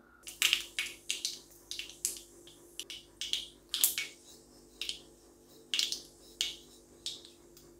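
Mustard seeds spluttering in hot coconut oil: sharp, irregular pops, about two a second. This is the tempering stage, with the oil hot enough for the seeds to burst. A faint steady hum runs underneath.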